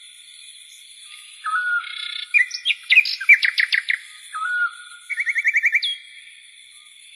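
Night-time bird calls: a short hooked whistle repeating about every three seconds, a burst of sharp chirps about two seconds in, and a fast trill of about ten notes just after five seconds. Behind them runs a steady high-pitched drone, like an insect chorus.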